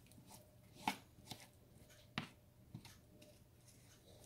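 Faint clicks and taps of a slotted spoon knocking against a plate and the skillet as sautéed mushrooms are scraped into a cream sauce; a few sharp clicks in an otherwise quiet stretch.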